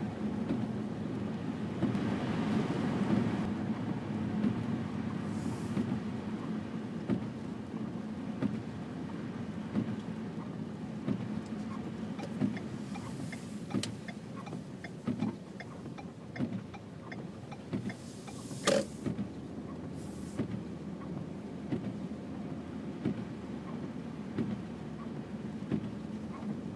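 Car driving on a snow-covered road, heard from inside the cabin: a steady low hum of engine and tyres, with scattered light knocks and one sharper click about two-thirds of the way through.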